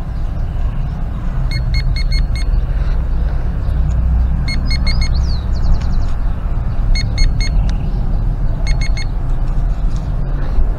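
Metal-detecting pinpointer giving short bursts of rapid high beeps, several times, as its tip is swept over the soil and picks up metal. Under it, a steady low rumble.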